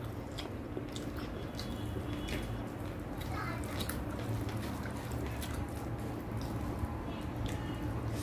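Wet, sticky clicks of rice and chicken curry being squeezed and mixed by hand, together with chewing, scattered irregularly over a steady low hum.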